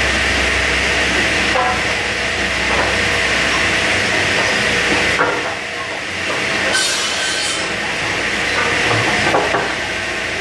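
Saw in a truss plant cutting lumber: a steady, loud mechanical noise, with a short sharp high hiss about seven seconds in.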